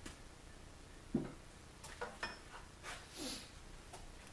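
Faint, scattered clicks and light knocks of metal lathe parts being handled while the lathe is stopped, as a tailstock live center is taken out and another readied. A soft hiss comes about three seconds in.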